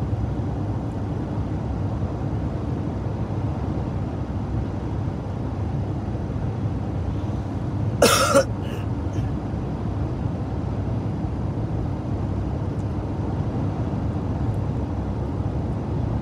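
Steady road and engine noise of a moving car, heard from inside the cabin, with one short cough from a man about halfway through.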